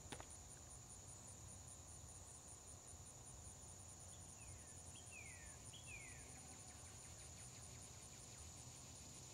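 Faint, steady high-pitched insect chorus with an even pulse, typical of crickets on a summer evening. About four seconds in, a bird gives three short whistled notes, each sliding down in pitch, under a second apart.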